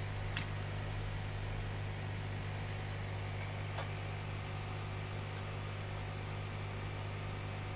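Steady low electrical hum from the soldering bench equipment, with two faint light clicks, one about half a second in and one about four seconds in.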